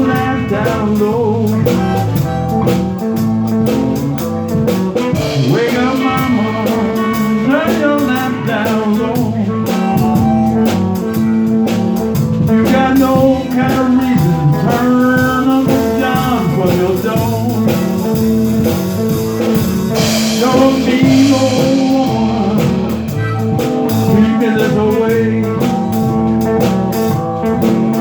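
Blues band playing an instrumental passage, with guitar to the fore.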